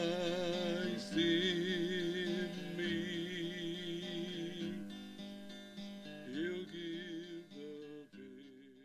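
The closing bars of a hymn: a voice holds long notes with vibrato over acoustic guitar strumming, then the music fades out near the end.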